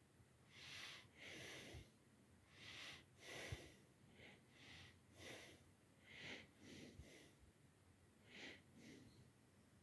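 Near silence broken by faint, short breathy puffs of noise, roughly one every half second to a second.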